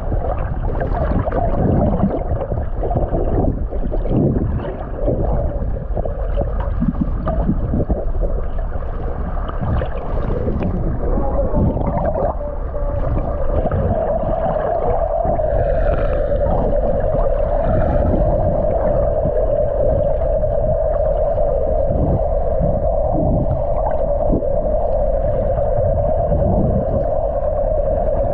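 Muffled underwater sound through a submerged camera: a steady rush and gurgle of water, joined about halfway through by a steady droning tone.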